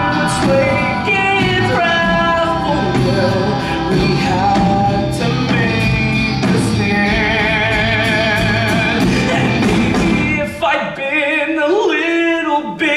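A man sings a rock musical-theatre song live over a band, with a long wavering held note in the middle. Near the end the band's low end drops away and the voice carries on more sparsely.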